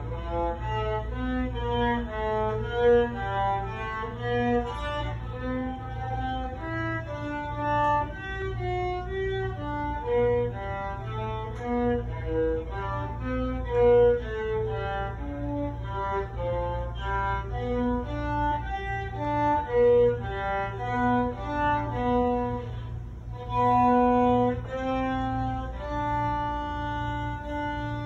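Solo violin played with the bow, unaccompanied: a melody of short notes that change quickly, with a few longer held notes near the end.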